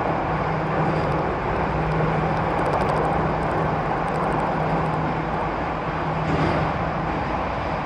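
Jakarta MRT metro train running at speed, heard from inside the carriage: a steady rumble of wheels on rail with a steady low hum underneath.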